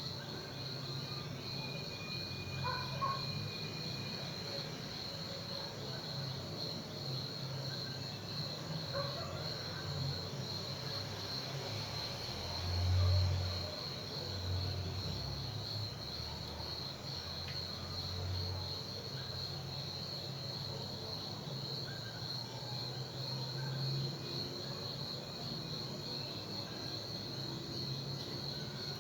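Crickets trilling steadily in a continuous high-pitched chorus. A few low, dull thumps come about halfway through.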